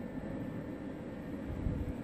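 Steady low background hiss and rumble, with no distinct sound events.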